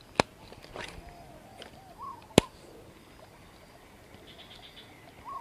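Two sharp clicks about two seconds apart, over faint, short rising-and-falling animal calls.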